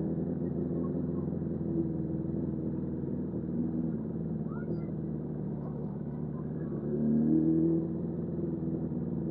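Suzuki GSF600 Bandit's inline-four engine running on the move, with a short rise in revs about seven seconds in.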